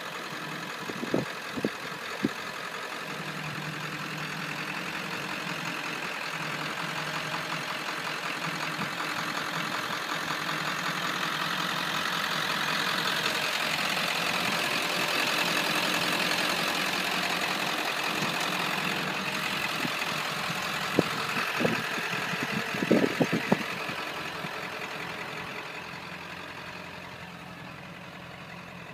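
Ford 7.3-litre Powerstroke turbo-diesel V8 idling steadily. It grows louder toward the middle and quieter in the last few seconds. A few short sharp clicks come about a second in and again about two-thirds of the way through.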